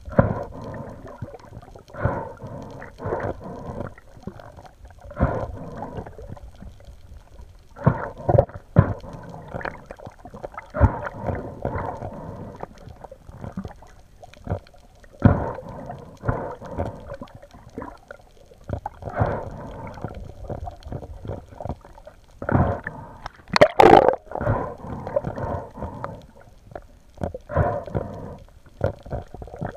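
Muffled underwater noise picked up by an action camera mounted on a speargun as the diver moves: irregular gurgling water sounds and knocks against the housing. There is one louder, sharper burst about three-quarters of the way through.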